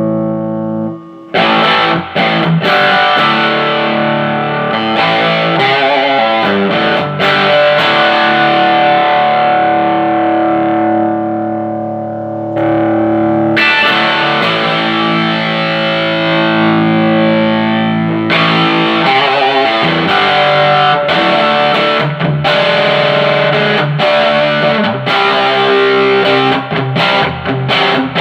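Distorted electric guitar played through a Fender Hot Rod Deluxe tube amp, freshly fitted with a new pair of 6L6GC power tubes and recapped, working again after a repair. A held chord stops about a second in, then picked notes and strummed chords ring out and change every few seconds.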